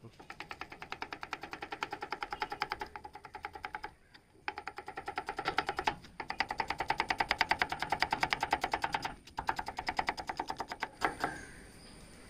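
A kitchen knife chopping rapidly on a thick wooden chopping block, about eight to ten strokes a second, in several quick runs that stop and restart.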